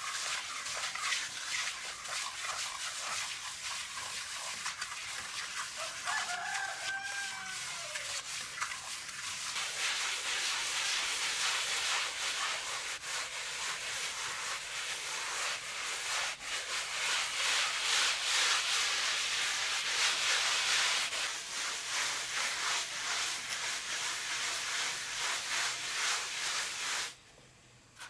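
A rooster crows once, about a quarter of the way in, over a steady, scratchy high hiss with many small clicks that grows louder in the middle and cuts off suddenly near the end.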